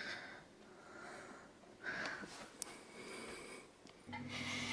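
Faint breathing close to the microphone, a couple of soft exhalations, with a quiet steady low hum coming in near the end.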